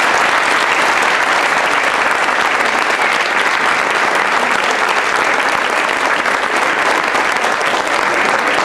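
Theatre audience applauding, a dense, steady clapping of many hands.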